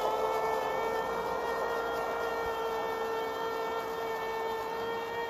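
Steady, high-pitched whine of a hovering camera drone's propellers, holding nearly one pitch throughout.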